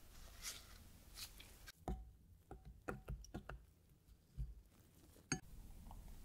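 Metal forks clinking and tapping against a glass bowl as a sponge cube is turned in runny chocolate icing: soft wet swishing at first, then a run of irregular sharp clicks with a short ring, the sharpest about five seconds in.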